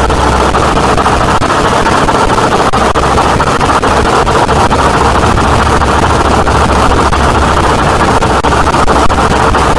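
Harsh noise music: a loud, unbroken wall of distorted noise, strongest in the midrange, over a steady low drone.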